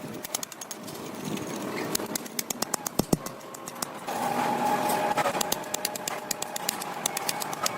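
Rapid, irregular clicking and knocking, with a cluster of sharp knocks about three seconds in and a steady hum for about a second after four seconds.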